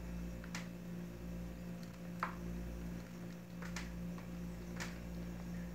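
Low, steady electrical mains hum with a few faint clicks scattered through it, the sharpest about two seconds in.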